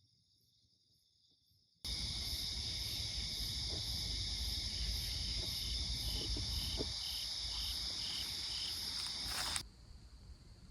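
Night chorus of crickets and other insects: several steady high trills layered with a call pulsing about twice a second. It starts suddenly about two seconds in, louder than the faint chorus before it, and cuts off abruptly near the end.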